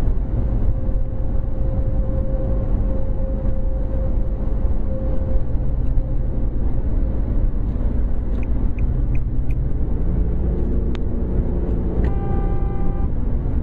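Steady road and engine rumble inside a car cruising at highway speed. About two-thirds of the way through come four short high beeps, and near the end a brief held tone with overtones.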